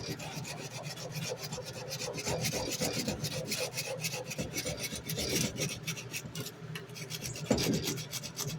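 Sandpaper rubbed by hand in quick back-and-forth strokes along a steel knife blade, hand sanding out grinding marks, with one louder knock about seven and a half seconds in.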